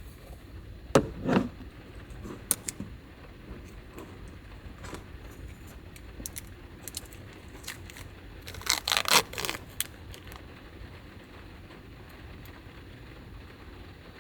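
Things being handled inside a small van: two short bursts of rustling and clattering, about a second in and again near nine seconds in. A steady low rumble runs underneath.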